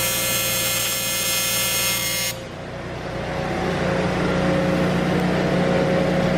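Welding arc buzzing steadily while an aluminum reinforcement is welded over the cracked front frame, then cutting off abruptly about two seconds in. A steady mechanical hum carries on after it.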